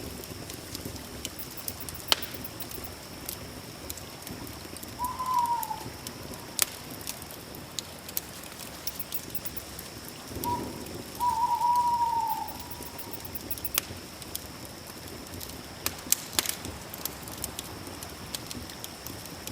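Campfire crackling, with scattered sharp pops, under a steady high-pitched hum. A bird calls twice, a short call about five seconds in and a longer, falling call around eleven seconds in.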